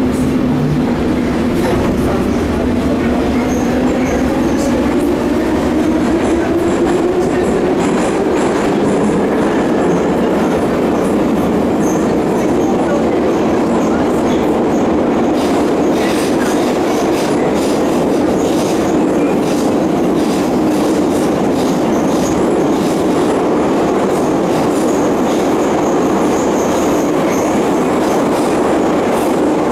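Inside a moving metro train car: continuous running and rail noise, with a motor whine that rises steadily in pitch over the first ten seconds or so as the train picks up speed, then levels off.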